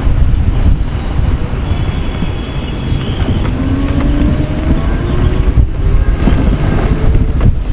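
Riding on a moped: wind buffeting the microphone with a heavy low rumble, and a faint whine from the moped that rises in pitch through the middle as it picks up speed.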